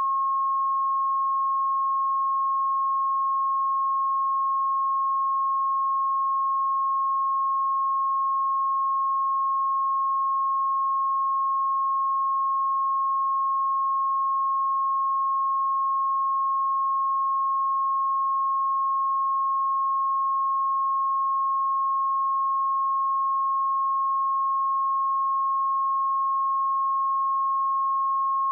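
A pure 1082 Hz sine-wave test tone, held steady at one pitch and one level without a break.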